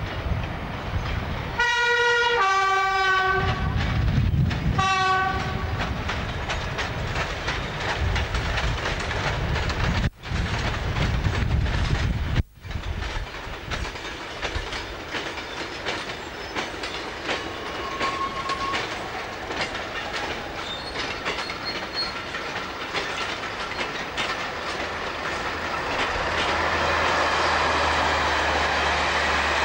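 British Rail Class 31 diesel locomotive hauling tank wagons sounds its two-tone horn, a higher note then a lower one, about two seconds in, and gives a short second blast a few seconds later. The train then runs past with its engine running and the wagons rolling over the track.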